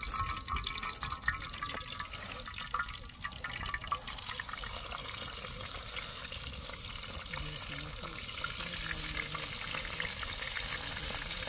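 Cooking fat heating in a pan over a fire, hissing and starting to sizzle, growing louder toward the end.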